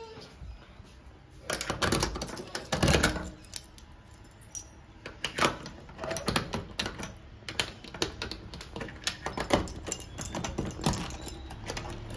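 Irregular clicks, knocks and rattles of things being handled, with louder clattering about two and three seconds in and a few more bursts later.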